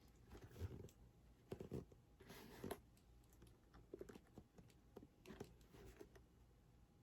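Faint, scattered scraping and tapping of a boot being handled and opened up: soft rustles and light knocks against the boot's material.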